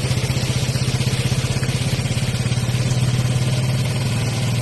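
A vehicle engine running steadily at an even speed: a low drone with a fast, regular throb.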